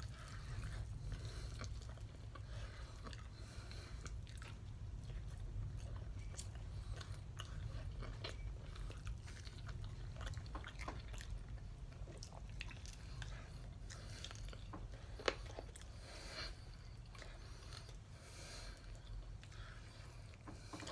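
Close-up chewing and biting of whole sauced chicken wings, with many small wet clicks and one sharper click about fifteen seconds in, over a low steady hum.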